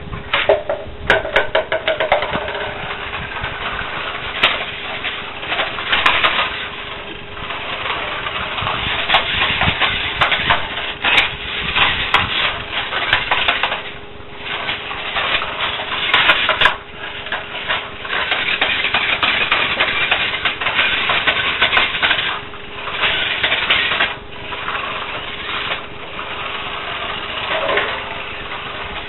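Toy radio-controlled car running over brick paving: its small motor and wheels make a noise that swells and drops repeatedly as it speeds up and slows, with a few short pauses and some sharp clicks.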